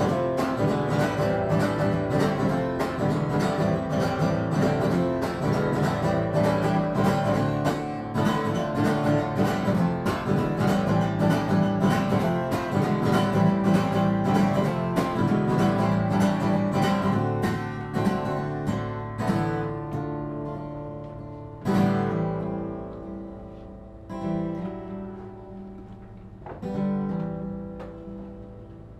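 Acoustic guitar strummed steadily in an instrumental break, without singing. In the last third it slows to a few single strums, each left to ring out.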